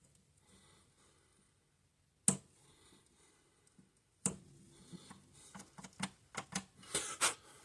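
Clicks and light taps of hand tools being handled: a sharp click about two seconds in, another about four seconds in, then a quick run of small clicks and taps.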